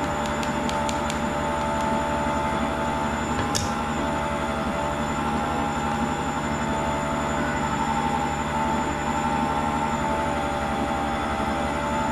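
Steady electric motor hum with several held tones, as from a stand mixer running, with a few light taps and clinks of a metal sieve and bowl near the start.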